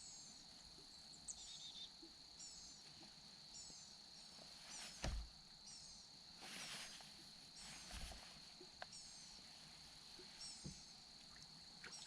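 Faint outdoor quiet with a bird repeating a short, high, falling call about once a second over a steady high-pitched whine. A few soft low thumps come through, the clearest about five and eight seconds in.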